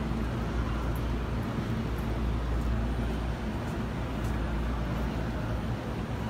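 Steady low hum inside a stopped JR East E231-500 series Yamanote Line electric train car.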